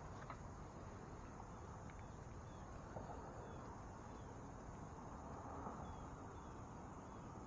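Faint outdoor ambience: a steady high hum with scattered faint short chirps and a few soft clicks.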